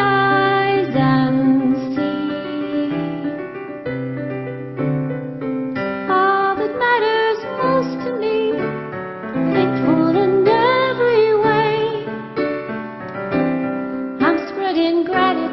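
A woman singing with vibrato, accompanying herself on a Casio Privia digital piano with held chords that change about once a second.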